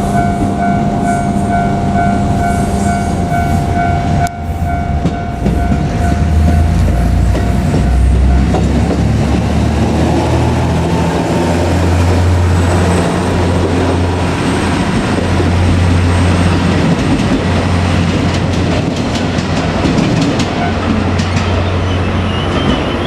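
A level crossing warning bell rings in a steady pulsing tone and stops about eight seconds in, while a KiHa 200 diesel railcar runs past. The railcar's diesel engine note is low and changes in steps.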